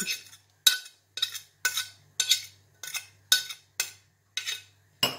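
A utensil knocking and scraping against a small glass bowl of vinaigrette with chopped onion, in short, sharp strokes about two a second.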